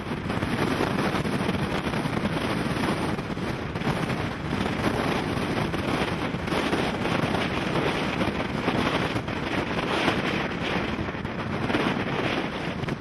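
Strong wind buffeting the microphone: a loud, steady rushing noise with rapid flutter that cuts in abruptly at the start.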